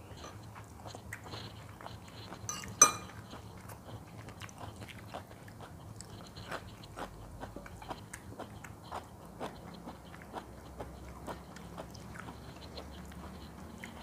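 A person chewing and crunching fried food, a steady run of soft clicks, with one sharp knock nearly three seconds in.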